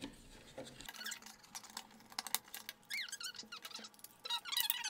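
Plastic smoke detector casing being handled and pressed back together: a run of light clicks and taps, then high, gliding squeaks of plastic rubbing on plastic from about three seconds in and again near the end.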